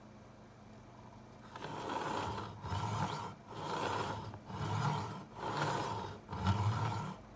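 Back-and-forth scraping or rubbing strokes, six in a row at about one a second, starting about a second and a half in.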